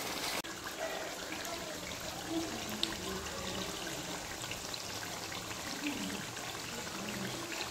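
Pork and taro in gravy simmering in a wok: a steady soft bubbling hiss with small scattered pops.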